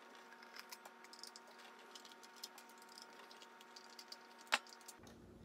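Phillips screwdriver backing small screws out of an air pump's diaphragm housing: light, scattered clicks and ticks of metal on metal, with one sharper click about four and a half seconds in.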